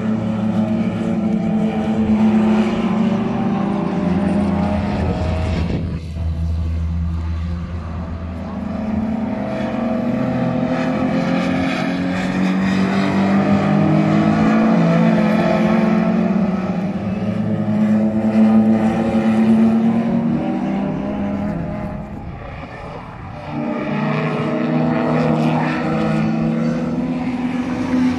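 Classic saloon race cars running hard through a corner, their engines at high revs with the pitch rising and falling as they accelerate and shift. There is a short lull about twenty-two seconds in before more cars come through.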